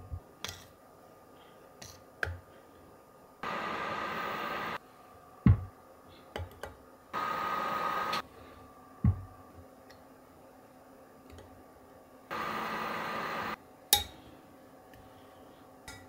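Microwave oven humming in three short runs of about a second each, heating cornstarch in a glass measuring cup. Between the runs come sharp knocks and small clinks of the glass cup being handled and set down.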